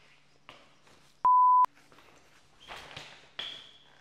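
A single short electronic censor bleep: one steady pure tone about a second in, lasting under half a second. Faint scattered rustles and knocks lie around it.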